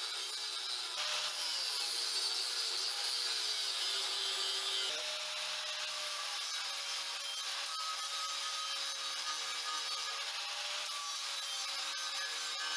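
Electric angle grinder with an abrasive disc cutting into the wall of a steel tank, a steady gritty grinding over the motor's whine. The whine dips in pitch about a second in as the disc bites harder, and picks up again about five seconds in.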